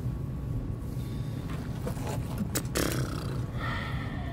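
A steady low rumble of outdoor background noise, with a few sharp clicks about two and a half seconds in.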